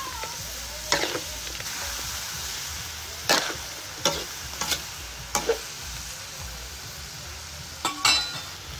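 Chicken pieces sizzling in a steel wok while a metal spatula stirs them, with several sharp clanks and scrapes of the spatula against the wok.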